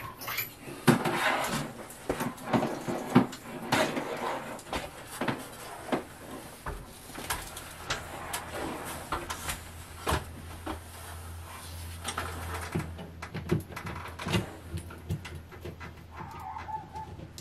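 Irregular clicking, knocking and scraping as a fiberglass fish stick is pushed up through a hole in the ceiling drywall to route a cable, with a steady low hum for a few seconds past the middle.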